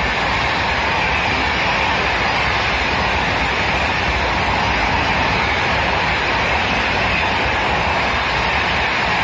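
Rajdhani Express passenger coaches rushing past at high speed: a steady, loud rush of wheels on rails and displaced air, without a distinct clickety-clack beat.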